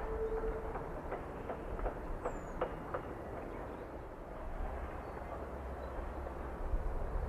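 Distant train running along the line, its wheels clicking over rail joints irregularly for the first three seconds or so, over a steady low rumble that carries on after the clicks stop.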